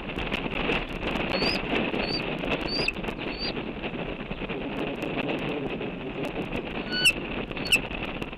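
Wind buffeting an outdoor microphone, with a bird giving four short high chirps a few seconds in, then two sharp, louder calls near the end.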